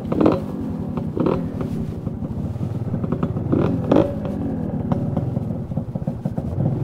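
Motorcycle engine revving as the bike pulls away uphill, the revs rising in several short surges.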